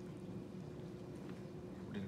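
A steady low hum, with a few faint soft clicks and scrapes as a spoon digs into baked rice in an aluminium foil tray.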